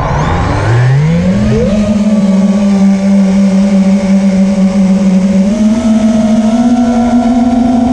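FPV racing quad's four T-Motor F80 Pro 2500KV brushless motors with HQprop Ethix S3 propellers whining: from an armed idle the pitch rises about a second in as the quad takes off, then holds steady in flight with a small step up later on. Heard from the onboard camera, with rushing air over the tone.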